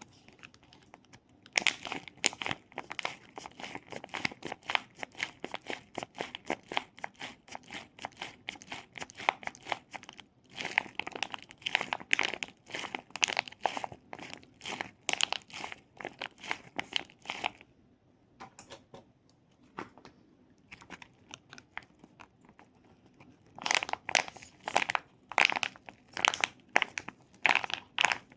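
Close-up crinkling and crackling of material being handled, in dense runs of rapid sharp crackles, with a sparser stretch a little past the middle.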